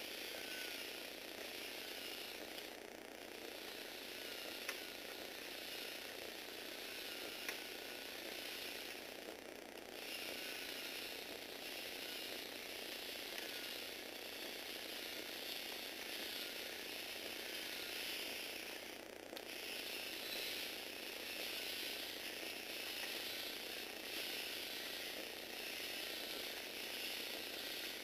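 Tamiya Universal gearbox motor whirring and Lego Technic gears clattering as the eight-legged Lego robot walks, the motor's pitch wavering up and down with the load. The noise dips briefly three times, and two sharp clicks stand out early on.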